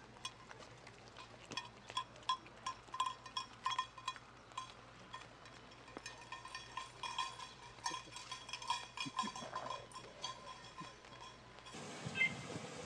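A small bell on a goat's collar clinking irregularly, several times a second, as the goat walks; the clinking stops shortly before the end.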